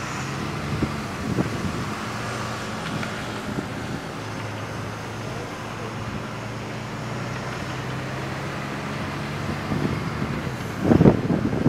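Open-top tour bus engine running under road noise heard from the upper deck, its pitch stepping down and then climbing again as the bus changes speed. Near the end, gusts of wind buffet the microphone.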